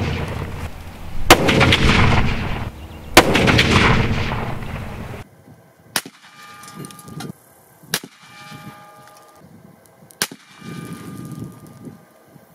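Two shots from a Ruger American Ranch rifle in .450 Bushmaster, about two seconds apart, each followed by a long rolling echo, with the echo of an earlier shot still dying away at the start. About five seconds in the sound drops to faint outdoor background with a few soft clicks.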